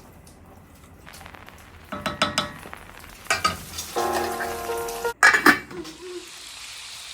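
Metal pots and utensils clinking and scraping, with ringing tones, and then from about six seconds in a steady sizzle of food frying in a pan.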